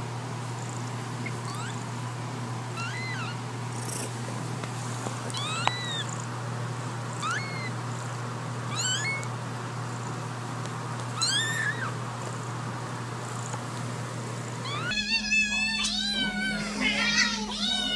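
Newborn kitten mewing, a thin, high cry every second or so over a faint steady hum. About fifteen seconds in, this gives way to several cats meowing loudly over one another as they beg at a food bowl.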